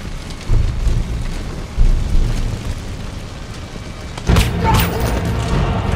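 Large fire burning with a deep low rumble and booms, under a film score. A sharp crack rings out about four seconds in.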